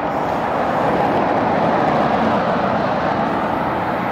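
Passing road traffic: a steady rush of tyre and engine noise on an asphalt street.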